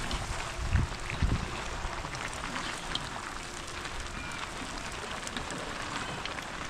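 Light rain pattering steadily with scattered drop ticks, and two dull low thumps about a second in.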